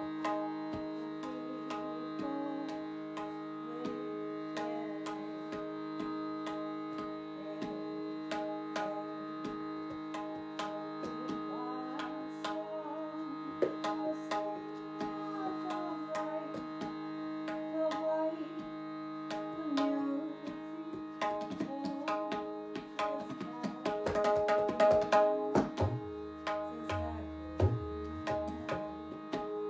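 Tabla played by hand over a steady held drone, the strokes growing busier and louder about two-thirds of the way through, with deep bass notes from the larger drum near the end.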